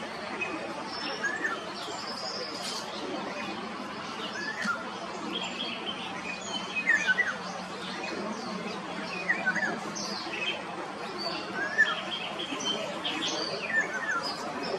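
Small birds chirping: short, sharply falling chirps repeated every second or two, with higher twittering calls mixed in.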